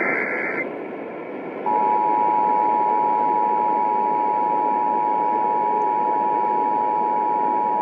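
Emergency Alert System broadcast over a hissing radio channel: the last of the screeching SAME data-header bursts ends half a second in, and about two seconds in the steady two-tone EAS attention signal begins and holds, announcing an incoming weather warning.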